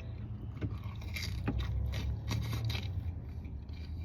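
A person biting into and chewing deep dish pepperoni pizza close to the microphone, with irregular crunches and wet mouth clicks.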